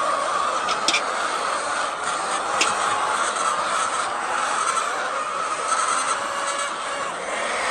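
Steady din of a large flock of chickens in a poultry shed, many birds calling at once, with a couple of sharp clicks about one and two and a half seconds in.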